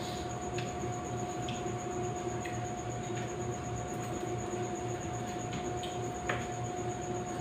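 A person chewing boiled cassava, with scattered small wet clicks and smacks from the mouth, over a steady electrical hum.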